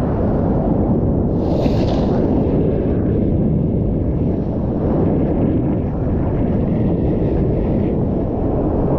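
Breaking ocean surf and wind buffeting the microphone, a loud, steady rumble, with a brief hiss about a second and a half in.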